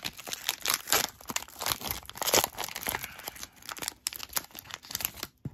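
Foil Pokémon booster pack wrapper being torn open by hand, crinkling and crackling in quick irregular crackles, loudest about two seconds in and easing off near the end.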